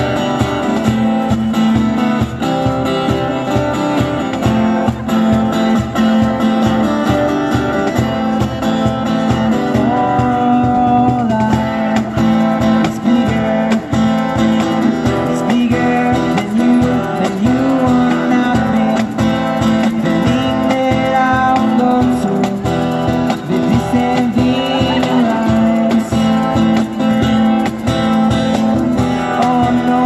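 Live acoustic guitar strummed to a steady cajon beat, with a man singing through a small amplifier.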